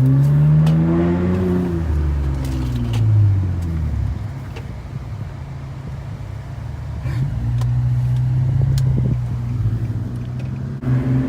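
A car engine being revved: its pitch climbs and falls back, blips once more, then drops to a quieter run before settling into a steady drone past the middle.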